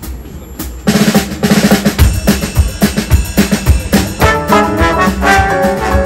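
Live swing band starting a number: the drum kit comes in suddenly about a second in with a busy run of snare and bass-drum strokes, and a trombone section joins with chords from about four seconds in.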